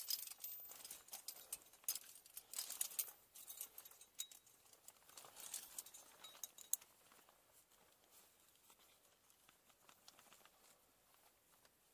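Metal climbing hardware clinking and clothing rustling: a scatter of light clicks and jingles, busiest in the first six or seven seconds, then fainter.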